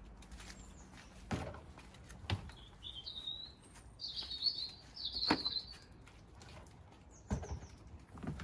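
Small garden birds chirping, a quick run of high calls in the middle of the stretch, with a few short knocks scattered through it.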